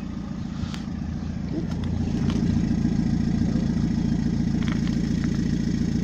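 Car engine idling, heard close at a large chrome Cherry Bomb exhaust tip: a steady low pulsing exhaust note that grows louder about two seconds in.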